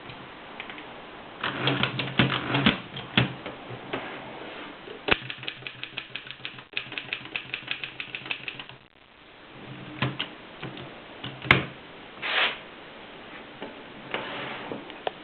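Mercedes typewriter being typed on: runs of key strikes, about six clacks a second through the middle, then a few single sharp clacks and short rasps.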